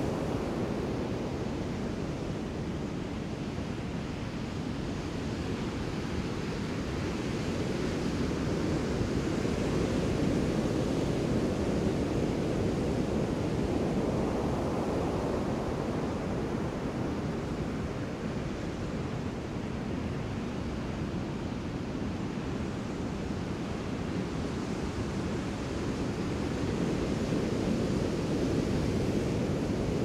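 Ocean surf: a continuous rushing wash of breaking waves, deep and full, slowly swelling and easing in loudness over several seconds.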